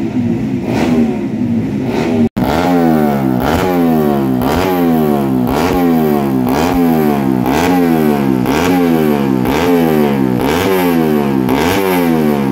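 A race-prepared underbone motorcycle engine revved in repeated throttle blips about once a second, each rev rising sharply and sliding back down. Before that, in the first two seconds, another engine runs steadily.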